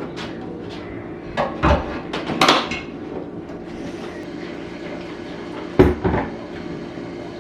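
Dishes and cutlery clinking and knocking: a quick run of clinks about one and a half to three seconds in, then a sharper knock or two about six seconds in, over a steady background hum.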